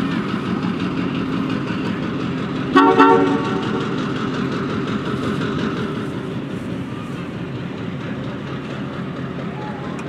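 Diesel locomotive running as its passenger train rolls slowly along the track, with one short train-horn toot about three seconds in. The engine sound drops a little over the last few seconds.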